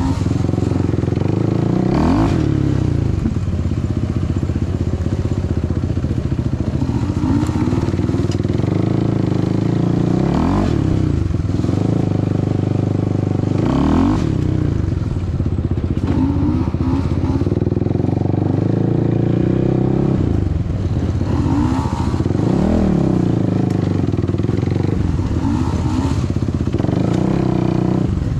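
ATV engine running on the move along a trail, its pitch climbing and dropping every few seconds as the throttle is opened and eased off.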